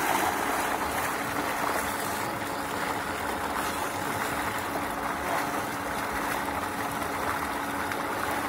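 Water gushing from a tubewell outlet pipe into a masonry tank, a steady rush of splashing water, with bathers stirring it. A steady low hum runs underneath.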